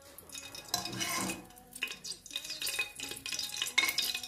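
A metal spoon scraping and clinking against the inside of a pressure cooker pot as spoonfuls of ghee are dropped into the oil, in several short scrapes and taps.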